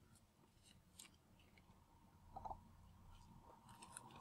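Near silence, with a few faint, brief rustles and taps of origami paper being pressed flat on a table.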